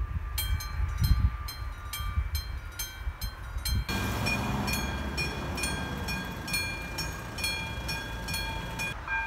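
Railway level crossing warning bell ringing in an even rhythm, about three strikes a second. About four seconds in, it cuts to another crossing's bell at a different pitch, over a louder rumbling noise.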